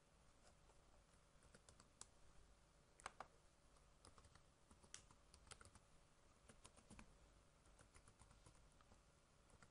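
Faint computer keyboard typing: irregular keystroke clicks, a few a second, as a password is entered.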